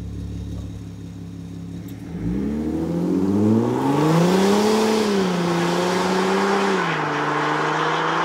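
Porsche Panamera Diesel's 3.0 V6 turbodiesel through a straight-through cat-back exhaust, idling and then pulling away hard at about two seconds in. The note climbs in pitch for a couple of seconds, holds, then steps down near the end as the gearbox changes up.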